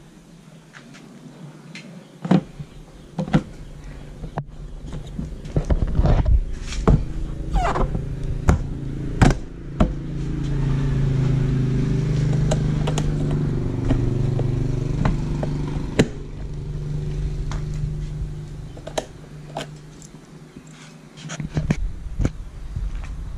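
Plastic clicks and knocks of a motorcycle top box's lid being shut and locked with its key, most of them in the first ten seconds and a few more near the end. Behind them, a motor vehicle engine hum swells and fades twice.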